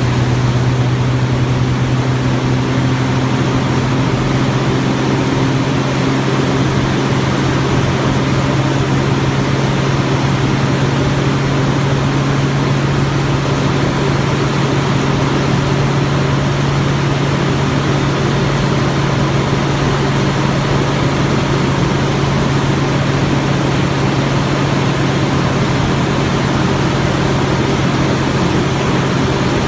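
Turbocharged Scion FR-S 2.0-litre flat-four engine idling steadily, with an even, unchanging hum.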